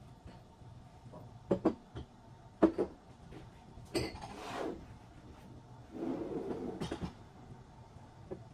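Small objects being picked up and set down on a cabinet top: a handful of sharp knocks and light clinks, with two short scuffing sounds in between.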